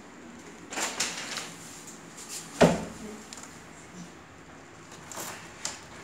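Handling knocks and scrapes, with one sharp thump about two and a half seconds in, as the back of the refrigerator is handled and filmed; no steady compressor hum stands out.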